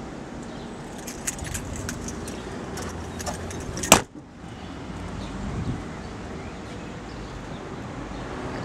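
The tailgate of a three-door VW Golf Mk3 hatchback is slammed shut with one sharp bang about four seconds in, after a few light clicks and rattles.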